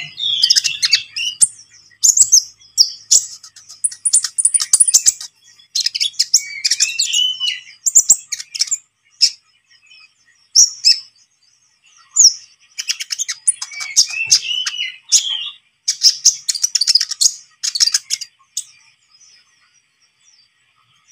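Kolibri ninja sunbird, a young male in patchy moulting ('trotol') plumage, singing gacor: rapid bursts of high twittering chirps, trills and sharp clicks. The song breaks off briefly about halfway through and again near the end.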